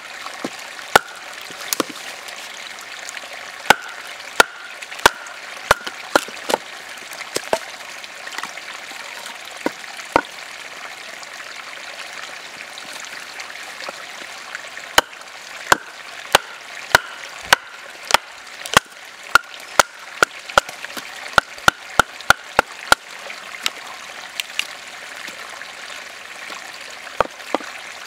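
Wooden baton knocking on the spine of a Condor Hudson Bay knife, driving its blade down through a log to split it: sharp knocks in two runs of about two a second, with a lull in the middle. A steady stream runs underneath.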